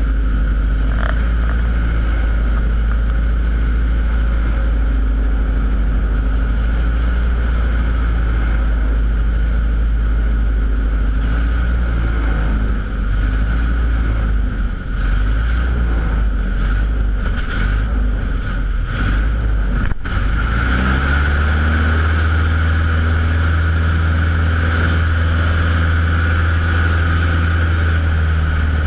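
Light bush plane's engine and propeller droning steadily, heard inside the cockpit. About twenty seconds in, the engine note rises and holds at a higher pitch as it speeds up.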